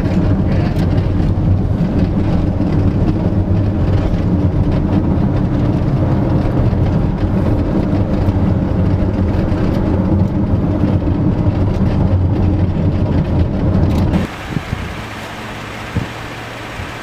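Road noise from a car driving fast on an unpaved road: a loud, steady low rumble of engine and tyres with faint small clicks. About fourteen seconds in, it cuts off suddenly to a quieter steady wind noise with a couple of knocks.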